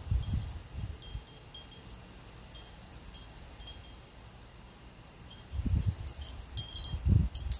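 Wind chimes tinkling irregularly, busiest in the last two seconds. Low rumbles come near the start and again from about five and a half seconds in.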